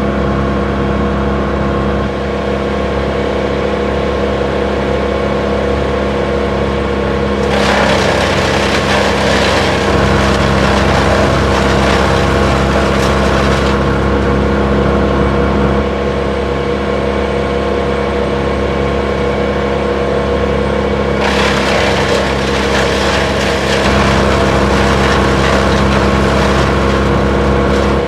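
Vermeer BC1000XL wood chipper running at a steady speed. Twice, for about six seconds each time, a louder rushing, grinding noise joins the engine hum.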